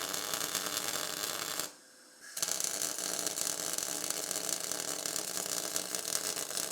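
MIG welding arc crackling and spattering steadily as a test bead is laid with pure CO2 shielding gas at about 7 m/min wire speed and 24 V. The arc stops for under a second about two seconds in, then strikes again and runs on.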